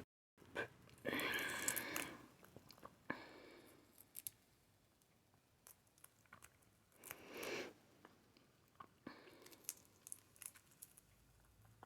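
Close-up eating sounds: chewing and biting into a boiled balut (fertilized duck egg), soft and wet with scattered small clicks, a longer burst of chewing about a second in and another about seven seconds in.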